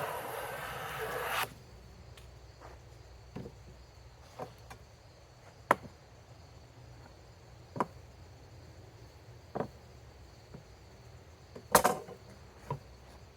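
A hand tool scraping along a wooden board in one stroke lasting about a second and a half, then a handful of scattered sharp knocks and clicks of tools or wood being handled on the bench, the loudest a double knock near the end.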